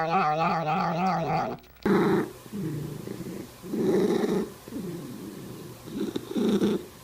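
A cat's drawn-out yowl, falling in pitch, ends about a second and a half in. Then a cat's low rumbling comes in pulses about once a second.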